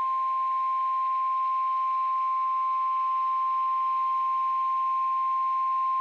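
NOAA Weather Radio 1050 Hz warning alarm tone, one steady unbroken beep over faint radio hiss, signalling that a severe thunderstorm warning broadcast follows.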